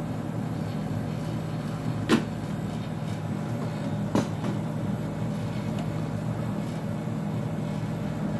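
Espresso machine running steadily during a shot extraction, a low even hum, with two sharp clicks about two and four seconds in.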